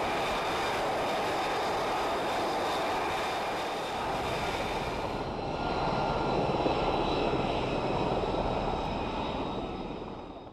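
F-35B jet engine running on a carrier flight deck: a steady roar with several high whining tones. About five seconds in the high whine drops away and a duller, deeper aircraft noise takes over, fading out at the very end.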